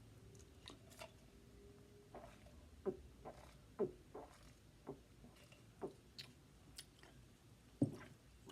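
Quiet, short clicks and smacks, about one a second, the loudest near the end.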